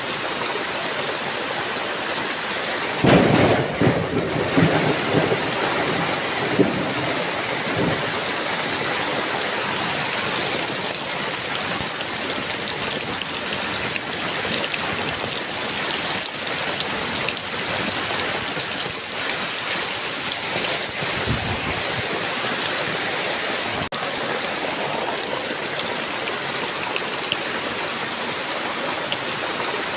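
Steady heavy rain with a thunderclap about three seconds in that rolls on in several loud rumbles for a few seconds, and a fainter distant rumble of thunder later.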